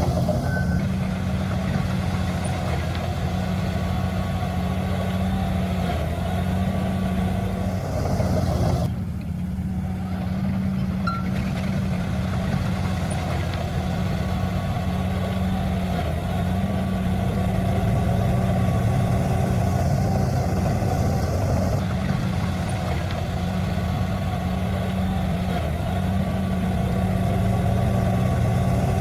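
Heavy diesel earthmoving machinery, dump truck or bulldozer, running steadily with a deep, even engine drone, with an abrupt change in the sound about nine seconds in.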